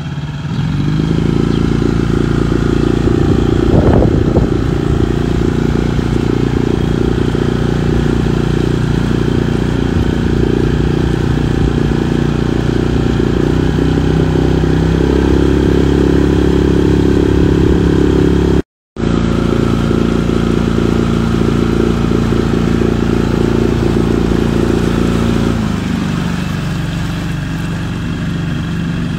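Motorboat's outboard engine running under way: it picks up about a second in, rises a little in pitch around the middle, and eases off near the end. The sound drops out for a moment just past halfway.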